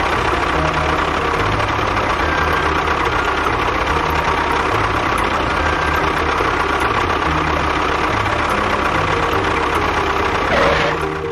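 An engine running steadily at idle, then stopping near the end.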